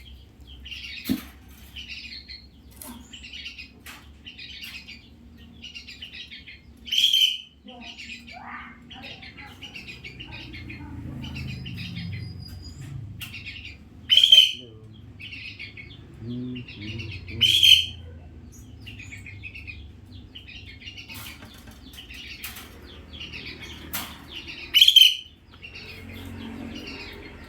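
Hill myna calling: short high chirps repeating about once a second, broken four times by a loud, sharp call.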